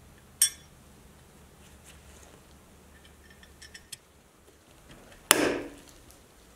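Two short sharp clicks of small parts being pressed together: the chrome light bezel seated on the 1963 Tonka tow truck's roof light bar, and a few seconds later a louder snap with a brief ring as the red plastic lens is pressed in. A few faint taps come between them.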